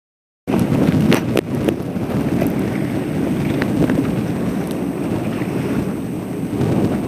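Wind buffeting the camera microphone: a loud, steady low rumble that cuts in suddenly about half a second in, with a few short knocks soon after.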